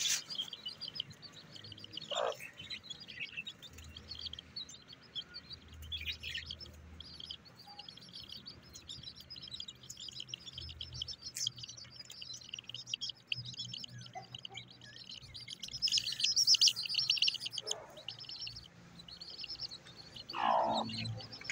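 Aseel chicken chicks peeping: rapid, high chirps that go on almost without a break, busiest and loudest about three-quarters of the way through. Near the end a lower sound slides down in pitch.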